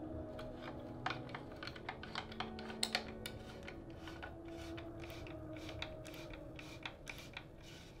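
Light, irregular clicks and taps of small tools and parts handled against a carbon road bike frame during assembly, with a few sharper clicks about a second in and again around three seconds in.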